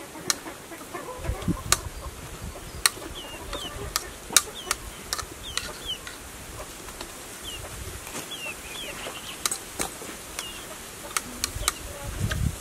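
A metal spoon clinks and scrapes against a bowl in sharp, scattered clicks while someone eats. Chickens give short, high chirping calls throughout.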